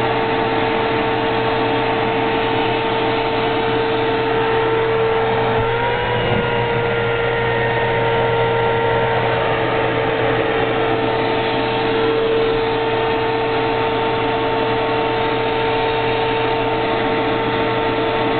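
Vacuum cleaner running steadily: a high motor whine over rushing air through the wand, its pitch rising slightly about six seconds in and settling back a few seconds later.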